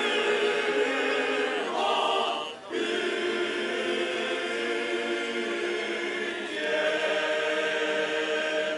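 Estonian men's choir singing a cappella, holding long sustained chords. There is a short break between phrases about two and a half seconds in, and the singing stops at the very end.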